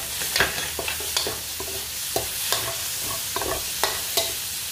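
Chicken pieces sizzling as they sauté with garlic and onion in an aluminium wok, stirred with a metal spoon that scrapes and clinks against the pan several times a second, unevenly.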